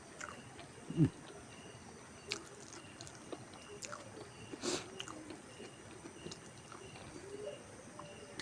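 Close-up eating sounds: food being chewed and bitten, with scattered wet mouth clicks. A low thump about a second in is the loudest sound.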